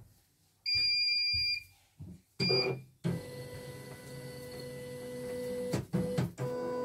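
CNY E900 computerized embroidery machine starting up: a long electronic beep, then a short one, then the embroidery unit's motors run with a steady, pitched mechanical hum as the hoop carriage moves through its start-up calibration, with a couple of knocks near the end.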